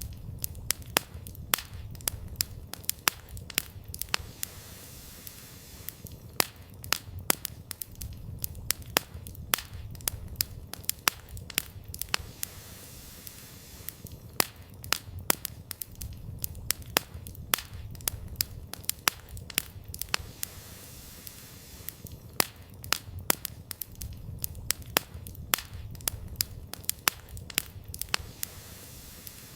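Campfire of burning firewood crackling, with many sharp, irregular pops, several a second, over a low rumble that swells and fades.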